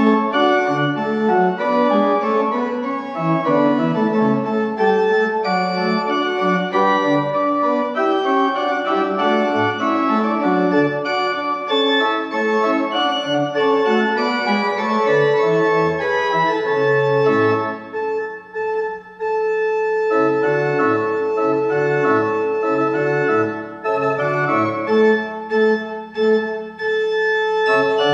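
Church organ playing the closing postlude: moving chords over a low note held throughout, with a higher note sustained through the last ten seconds.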